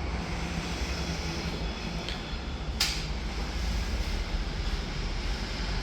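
Hot air oven running under test, a steady low hum and rush of air from its circulation fan, with one sharp click about three seconds in.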